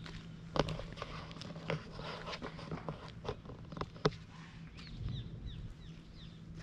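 Footsteps of someone walking on hard ground, sharp irregular steps about twice a second, over a steady low hum. A few short, falling bird chirps come in about five seconds in.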